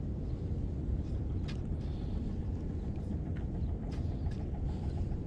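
Steady low rumble of wind on the microphone, with a few faint, irregular clicks.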